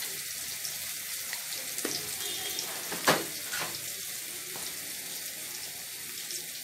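Fried onions and spice paste sizzling in hot oil in a frying pan, a steady hiss, with a few sharp clicks, the loudest about three seconds in.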